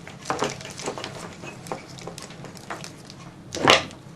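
Rustling and crinkling of wiring-harness wrap tape and wires being handled: a few short rustles, with a louder, longer one about three and a half seconds in.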